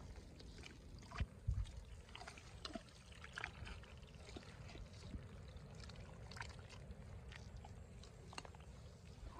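Feet squelching and sucking in thick wet mud, with scattered small wet splats and clicks. Two dull thumps come a little over a second in.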